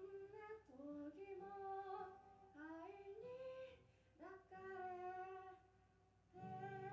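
A young woman singing solo to her own acoustic guitar, in held phrases that glide up and down between short breaths. A strummed guitar chord rings out near the end.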